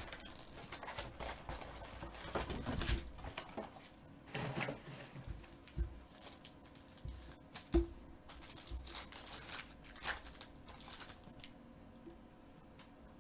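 Trading card boxes and foil packs being opened by hand: wrappers crinkling and tearing, with rubbing and light clicks of handling, and one sharper knock about eight seconds in.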